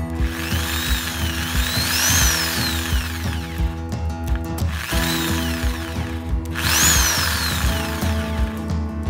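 INGCO 400 W corded jigsaw motor run in two bursts, its whine rising and falling as the variable-speed trigger is squeezed and eased.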